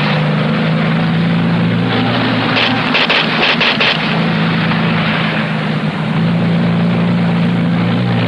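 Military jeep engine running with a steady low drone as the jeep drives, with a quick run of sharp clicks about three seconds in.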